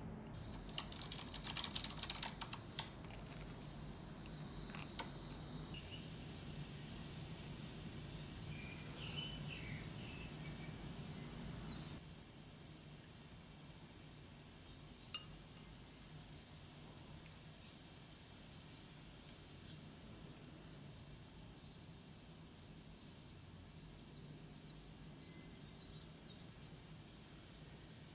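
Faint tableware sounds: a wooden spoon scraping and tapping as egg salad is spread on a bagel, with light clicks against a ceramic plate, most of them in the first few seconds. Short high bird chirps can be heard in the background.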